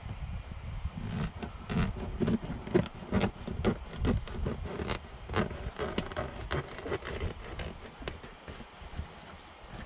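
Utility knife slicing through a heavy floor mat in many short, uneven strokes, with the mat scraping and rubbing as it is held and cut.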